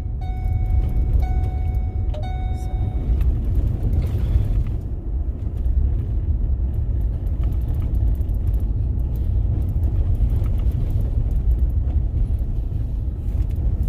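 Steady low rumble of a vehicle driving along a freshly graded gravel road, heard from inside the cab. A held tone with overtones sounds over it for the first three seconds.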